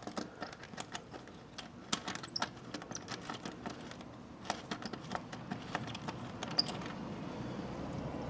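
Light, irregular metallic clicking and jingling of a quick-release seat fastener and its key ring being handled and hand-tightened into the seat.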